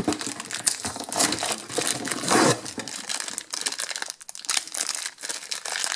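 Clear plastic packaging crinkling and rustling in irregular crackles as a small toy figure is unwrapped by hand.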